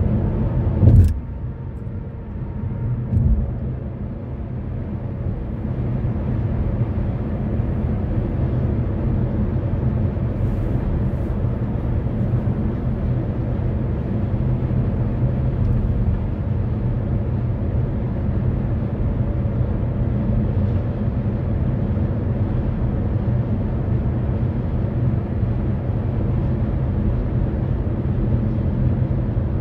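Steady low road and engine rumble heard inside a car cruising at highway speed, with a sharp thump about a second in and a smaller one about three seconds in.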